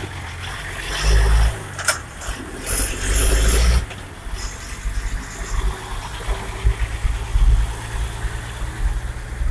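A car running, with a steady low rumble and two louder stretches about one and three seconds in.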